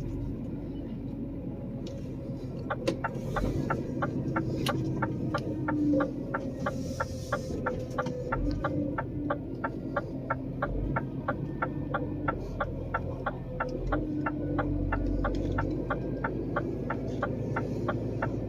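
Rapid, even mechanical ticking, about four ticks a second, over a steady low hum; the ticking starts about three seconds in.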